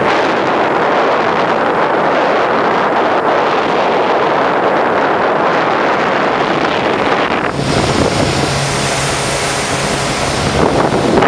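Speedboat under way: wind buffeting the microphone over the rush of water along the hull. About two-thirds of the way through, the sound switches to a brighter hiss with a steady engine hum, which cuts off abruptly near the end.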